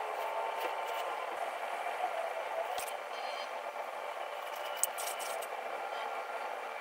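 Electric potter's wheel running steadily while wet hands rub and shape the spinning clay walls of a tall vase, with a few faint clicks and taps scattered through.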